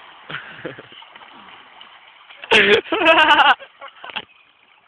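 A person lets out two loud, drawn-out wordless yells about two and a half seconds in, the second one longer and wavering in pitch. Before them there is only a low hiss with a few soft knocks.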